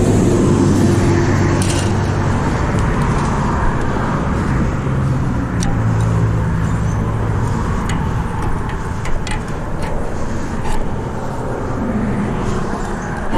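Steady road traffic passing over the bridge: car engines and tyre noise, with a couple of vehicles droning by, louder near the start and again mid-way. A few light sharp clicks are scattered through it.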